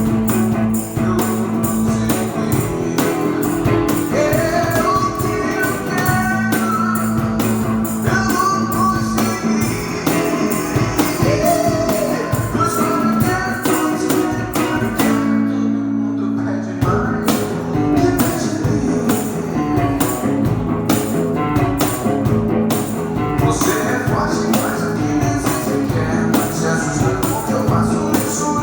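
Rock band music: guitar over a steady drum beat. About halfway through the drums stop for a second or so while a chord is held, then the beat comes back in.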